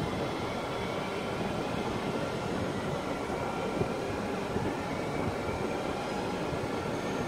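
Bombardier TRAXX electric locomotive standing still under power, its cooling blowers and electrics running in a steady whir with faint high whining tones.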